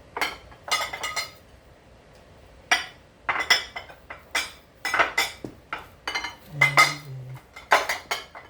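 Dishes and bowls clinking and clattering against each other and the counter as they are set down and moved, in several short clusters of sharp knocks with a brief ring.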